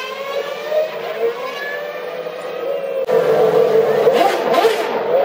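Formula One car engines running on the starting grid, a high, steady engine note with its pitch sagging slightly. About three seconds in, the sound turns abruptly louder and harsher.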